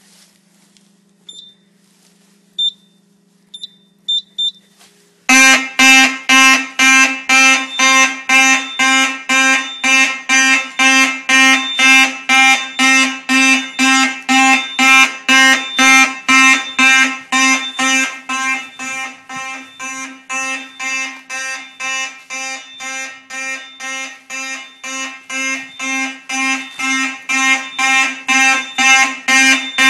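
Several Simplex fire alarm horns, driven by a Simplex 4008 fire alarm panel, start sounding about five seconds in and pulse in march time, about two loud buzzing blasts a second. Before they start, a low hum and a few short high beeps.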